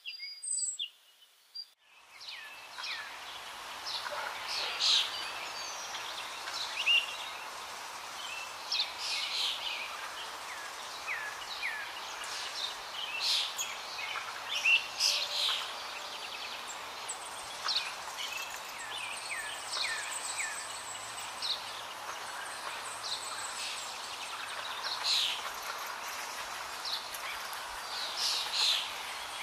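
Many birds chirping and calling over a steady hiss of outdoor ambience, starting about two seconds in after a brief hush.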